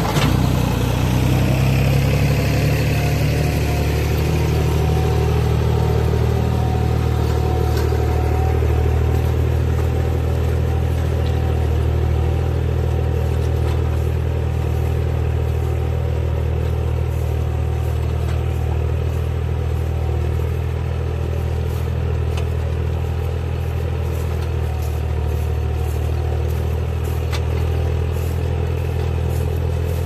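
Valtra 700 tractor's diesel engine revving up as the tractor pulls off, then running steadily under load while it draws a Kverneland reversible plough through the soil.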